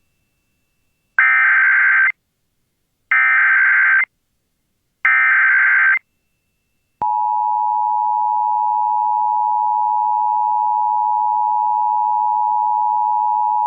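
Emergency Alert System SAME header: three one-second bursts of warbling digital data tones, encoding a Child Abduction Emergency (AMBER Alert). About seven seconds in, the steady two-tone EAS attention signal begins and holds.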